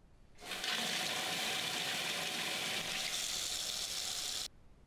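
Water running from a single-lever mixer tap into a bathroom sink, a steady rush that starts about half a second in and cuts off suddenly near the end as the tap is shut.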